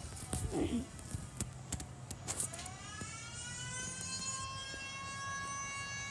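Federal Signal Model 2 electromechanical siren spinning up: about two seconds in its pitch begins to rise and settles into a steady wail with several overtones. A few light knocks come in the first couple of seconds.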